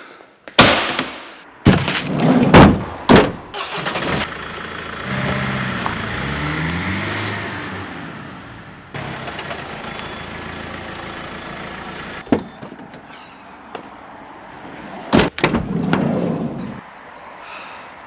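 A series of loud knocks and door slams, then a van's engine running and pulling away, its pitch climbing in steps, settling into steady running noise. Two more loud slams come about fifteen seconds in.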